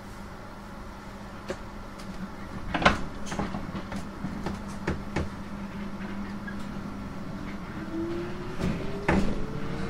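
Inside a 719 series electric train: a steady hum with several knocks and rattles, the loudest about three seconds in. About three-quarters of the way through, the traction motor tone starts and climbs steadily in pitch as the train picks up speed.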